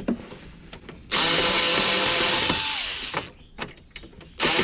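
Small handheld cordless screwdriver running in two bursts as it backs screws out of a CRT TV's plastic back casing: a run of about two seconds starting a second in, its whine dropping as it slows, then a second run starting near the end, with a few light clicks in between.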